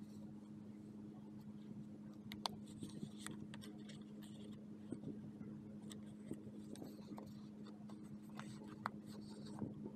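Paper pages and a card of a handmade journal being handled, giving soft rustles and light ticks and taps, over a steady low hum.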